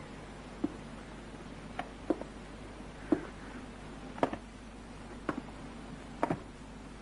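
Slow footsteps on wooden floorboards, about one step a second, each a short hollow knock, over a steady low soundtrack hum.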